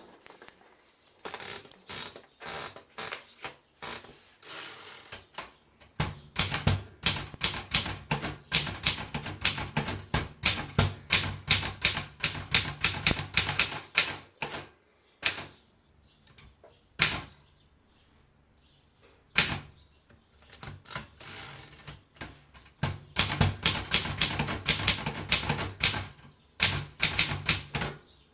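Continental Wanderer 50 manual typewriter being typed on: fast runs of sharp key strikes broken by pauses, with a few single, louder strikes in between.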